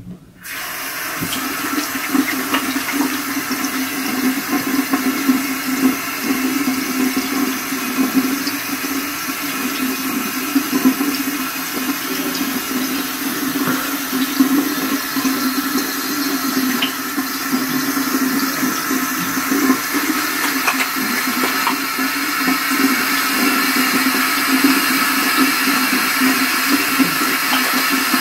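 Bathroom sink tap turned on just after the start and left running into the basin: a steady rush of water, with occasional small splashes from hands washing a face.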